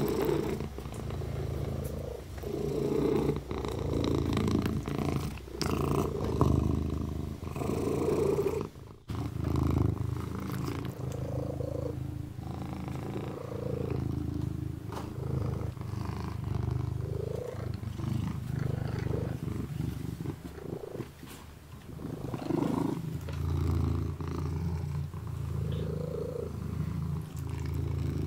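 Kitten purring steadily while licking its paw, with short soft licking clicks. The purr breaks off briefly about nine seconds in and dips again near twenty seconds.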